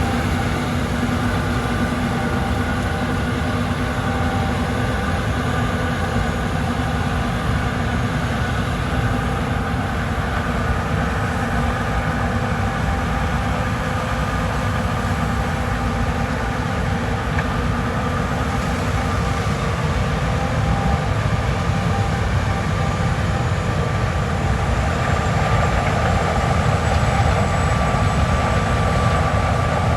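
John Deere S790 combine harvester running steadily while harvesting corn: a dense, even mechanical drone with several steady whining tones over it. A faint high whine joins about two-thirds of the way through, and the sound grows slightly louder near the end.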